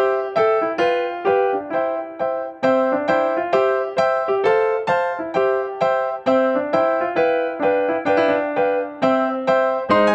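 Background keyboard music: a light, even run of struck piano-like notes, about two to three a second, each fading quickly before the next.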